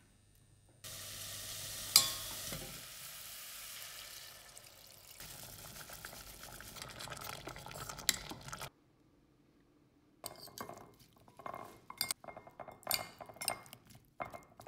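Beef and butter sizzling in a stainless steel saucepan, with one sharp clink of a spoon against the pan about two seconds in. After a short pause, metal spoons clink and scrape in a glass bowl as cucumber slices are tossed in gochujang and sesame oil dressing.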